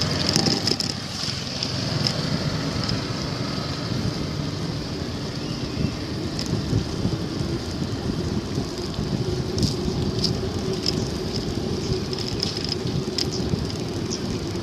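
Outdoor riding noise from a moving bicycle: wind on the microphone and tyre rumble on the road, with a steady high hiss throughout. A steady low hum joins about halfway, and a few sharp ticks sound in the second half.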